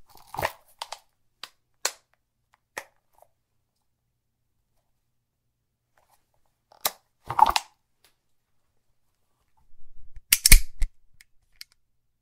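Handling sounds of a Smith & Wesson Model 39 9 mm semi-automatic pistol: sharp metallic clicks and clacks of the gun's parts being worked. A few single clicks come in the first three seconds, then a pause, then a double clack about seven seconds in and a louder cluster of clacks about ten seconds in.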